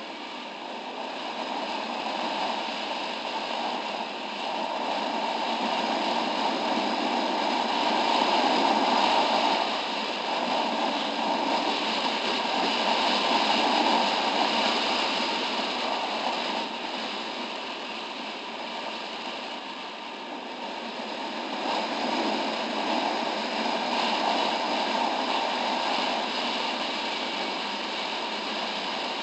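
Wind rushing over the microphone of a moving motorcycle, a steady roar that swells and eases with the bike's speed.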